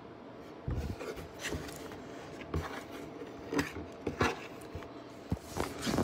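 Close rubbing and scraping against a cardboard box, irregular, with several sharper scuffs and knocks starting about a second in.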